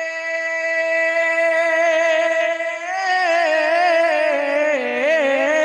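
A man sings a manqabat, unaccompanied, into a microphone. He holds one long steady note for about three seconds, then bends it into winding, wavering melismatic runs.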